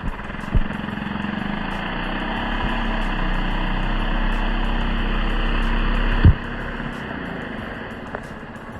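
Gasoline chainsaw running steadily under load, slowly growing louder. About six seconds in there is a single heavy thump, and the engine note drops off after it.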